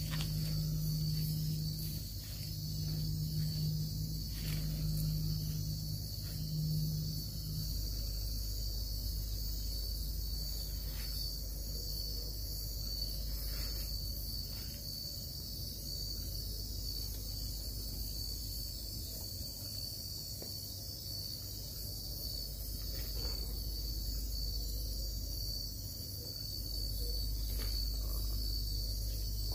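Steady chorus of night insects such as crickets, an unbroken high trill, with a few light rustles and knocks. A low hum runs beneath it and stops about seven seconds in.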